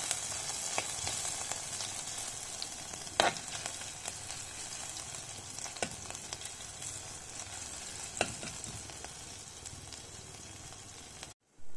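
Cumin seeds and grated ginger sizzling in hot oil in a nonstick pan while being stirred with a steel spoon. The spoon knocks against the pan four times, the loudest about three seconds in. The sound cuts off suddenly near the end.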